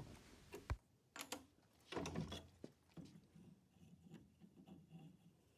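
Faint, scattered taps and knocks of a steel rule, pencil and square wooden blank being handled on a wooden workbench, the clearest in the first two seconds or so and softer ticks after.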